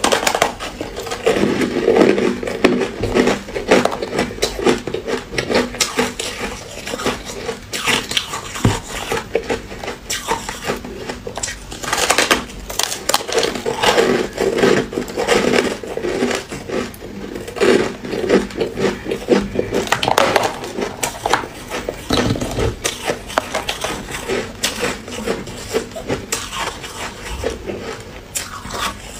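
Frozen shaved ice crunching between the teeth as chunks are bitten off a block and chewed, with dense, irregular crackling crunches throughout.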